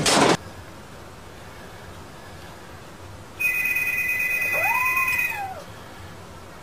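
A cat meows once, a call that rises and falls, over a steady, high, electronic-sounding tone that comes in about halfway through and lasts about two seconds. A loud noisy burst cuts off right at the start.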